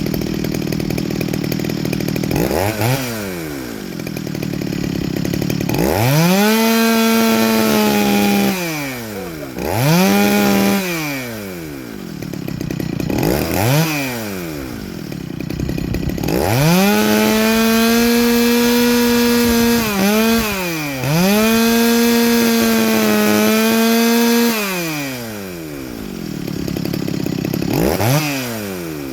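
Small ported two-stroke chainsaw with a muffler mod idling and being revved unloaded to full throttle: several quick blips and two longer holds of a few seconds each, the longest dipping briefly in the middle. The carburettor is being set so the engine four-strokes slightly at wide-open throttle.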